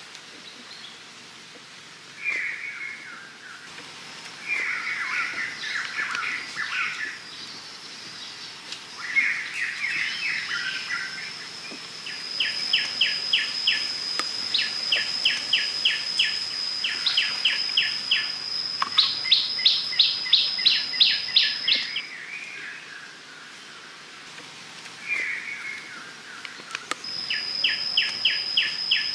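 Wild birds calling: short chirpy phrases and runs of rapid, evenly repeated notes, over a steady high-pitched whine that drops out for a few seconds near the end.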